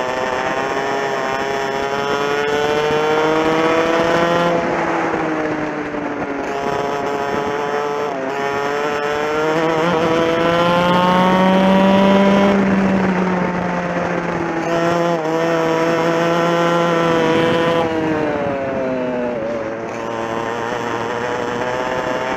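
TKM 100cc two-stroke kart engine at racing speed, heard on board. Its pitch winds up steadily and falls away three times as the revs drop, climbing again near the end.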